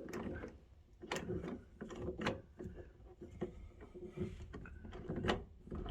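Kwikset door knob and latch being worked: a series of sharp mechanical clicks and light knocks, about one a second, as the handle is turned and the latch snaps in and out while the door is tried.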